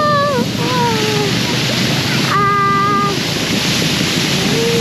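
Wind rushing steadily across the microphone, with a few short high voice calls over it: two falling ones in the first second and a held one about two and a half seconds in.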